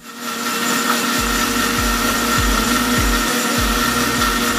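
Electric mixer-grinder running at full speed, crushing pineapple chunks, mint leaves, sugar and water in its steel juicer jar: a steady motor whine over a loud rushing noise, with low knocks recurring about every half second. It starts up right at the beginning.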